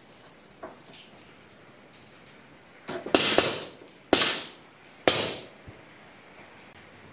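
Grease gun forcing grease into a grease nipple on a vine-tying machine: three short, loud bursts about a second apart, each fading within half a second, as fresh grease pushes the old grease out of the joint.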